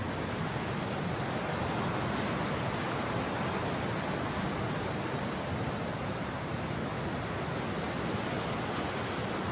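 Steady rushing noise of coastal wind blowing through coconut palm fronds, mixed with the wash of surf, with no distinct events.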